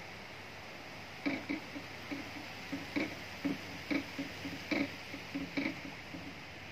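Steady rustle of wind in trees, with an irregular run of short ticks, about two or three a second, starting about a second in.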